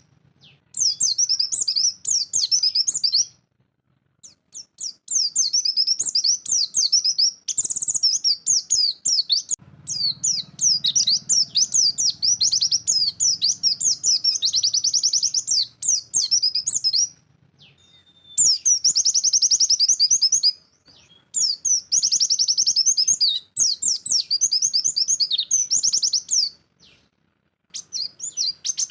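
White-eye (pleci) singing its rapid-fire 'nembak' song: long runs of fast, high chirping notes lasting several seconds each, broken by brief pauses.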